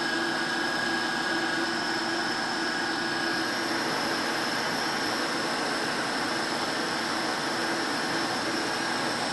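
KitchenAid stand mixer with its wire whisk attachment running steadily, a constant motor whine, whipping hot Italian meringue (egg whites with cooked sugar syrup) until it cools.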